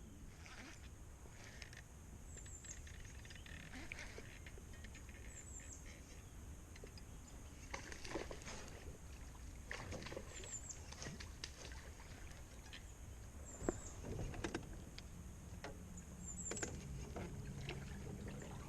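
Faint, scattered clicks and knocks of fishing gear being handled on a small boat during a cast and retrieve. A short high chirp repeats about every three seconds.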